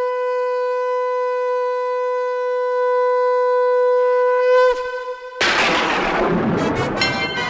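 Conch shell (shankh) blown in one long steady note for about four and a half seconds, its pitch dropping as it ends. About five seconds in, a loud crash rings out and dies away over a couple of seconds, and music with pitched tones starts near the end.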